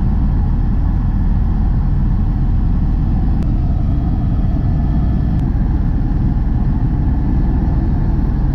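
Helicopter in flight heard from inside the cabin: a loud, steady engine and rotor noise, heaviest in the low end.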